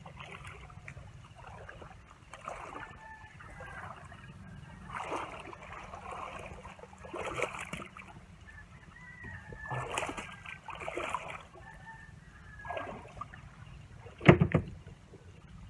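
Feet wading through shallow water, splashing and sloshing every second or two. Near the end there is one sharp thump, the loudest sound.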